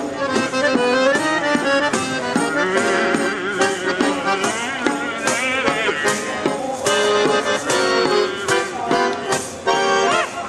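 Piano accordion and a hand-held drum playing a lively tune together. A wavering melody line runs on top.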